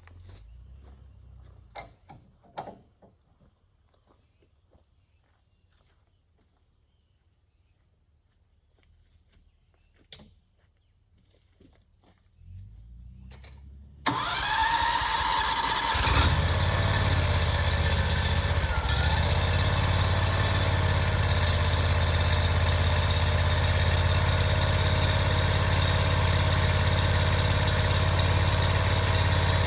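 A hydraulic sawmill's engine starts suddenly about halfway through, after a stretch of quiet broken by a few clicks. It then keeps running steadily, with a steady whine over it.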